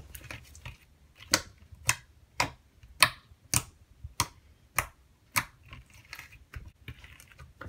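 Thick and glossy slime being poked and pressed with the fingers, giving sharp popping clicks about twice a second.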